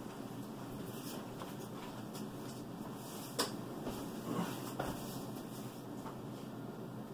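Handling noises from work on a hydraulic cylinder's parts: one sharp click about three and a half seconds in, then two softer knocks, over a steady background hiss.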